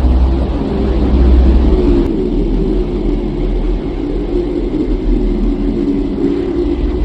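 Deep, continuous rumbling drone of a space-ambience track. About two seconds in, the deepest rumble drops away and a wavering hum comes forward.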